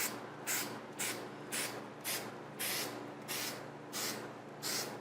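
Aerosol can of 3M Super 77 spray adhesive sprayed in short bursts, about nine quick hisses, roughly two a second, coating the pinch weld.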